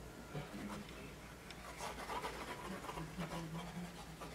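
Faint scratching of a plastic glue bottle's nozzle as it is drawn in zigzag lines across chipboard.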